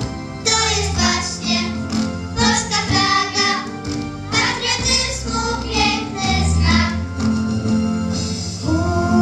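A girl singing into a microphone, amplified through a PA, with other children's voices and an instrumental accompaniment with a steady bass line.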